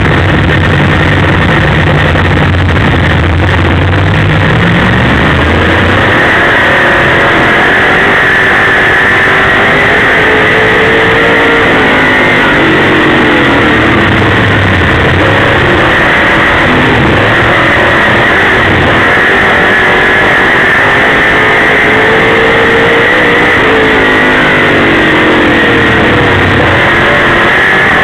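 Dirt late model sportsman race car's engine heard from inside the cockpit, very loud. It holds a steady low note for the first few seconds, then its pitch climbs and drops again and again as it is driven hard around the dirt oval.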